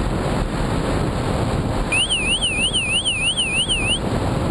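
A 12-volt electronic siren mounted inside a flying Skywalker RC plane warbles, sweeping quickly up and down at about three and a half sweeps a second. It starts about two seconds in and cuts off about two seconds later. Under it the onboard camera picks up a loud, steady rush of airflow and motor noise.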